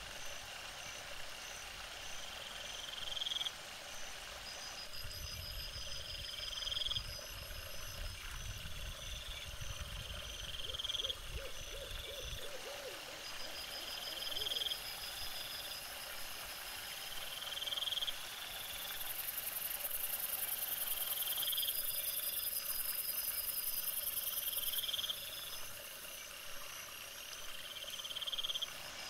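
Short rising animal calls repeated every one and a half to two seconds over a steady, high-pitched pulsing chorus of night creatures. A low rumble runs for several seconds in the first half.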